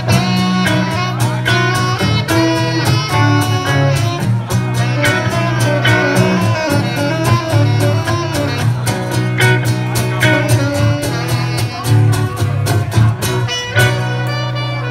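Live band music: a saxophone melody over strummed acoustic guitar and a steady bass guitar line, amplified, ending on a held bass note.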